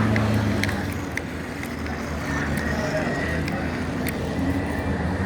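A motor vehicle's engine running steadily, a low rumble with a faint high tone and a few light clicks over it.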